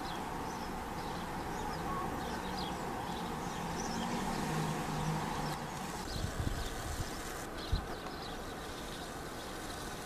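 Steady outdoor background rumble with faint, short high bird chirps scattered through it. A few low knocks come about six to eight seconds in, as the camera is swung away in a pan.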